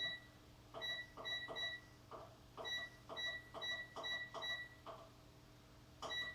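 Air fryer control-panel buttons pressed over and over, about a dozen times at roughly two a second. Most presses give a short click and a brief high beep, stepping the temperature setting up to 180 degrees.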